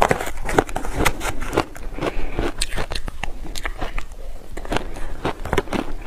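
Powdered shaved ice coated in purple sweet-potato powder being bitten and crunched, with a metal spoon scraping and scooping it from a plastic box; a dense run of sharp, irregular crunches, several a second.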